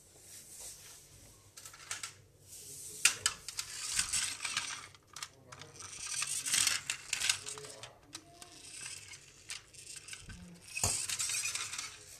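Rustling and sharp clicks from a plastic toy fire truck being handled close to the microphone, in several separate bouts.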